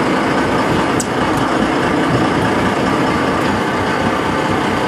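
Boat engine running steadily under way: a loud, even rumble with hiss. A sharp click about a second in.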